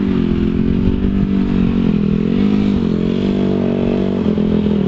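Dirt bike engine running at low revs, its note rising and dipping gently with small blips of the throttle, one about two and a half seconds in.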